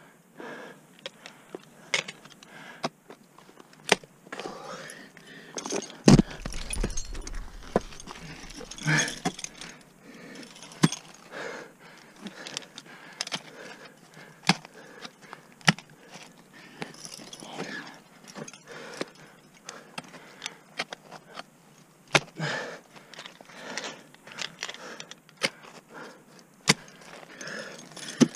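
Ice climbing on a frozen waterfall: ice axes and crampon points striking into the ice in sharp, irregular hits, with metal climbing gear clinking on the harness. A low rumble on the microphone about six seconds in.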